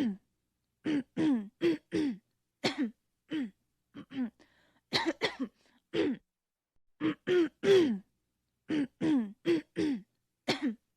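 A woman clearing her throat over and over: about twenty short voiced throat-clears, each dropping in pitch. They come singly and in quick pairs, with short silences between.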